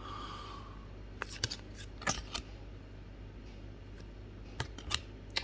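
Yu-Gi-Oh trading cards being handled and flipped through by hand: a handful of light clicks and snaps as cards slide and flick against each other, over a faint steady room hum.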